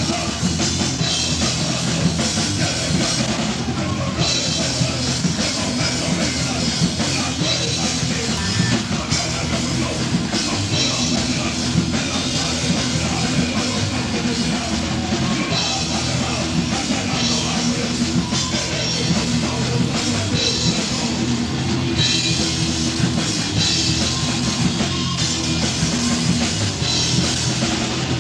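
Heavy metal band playing: electric guitar over a drum kit with cymbals.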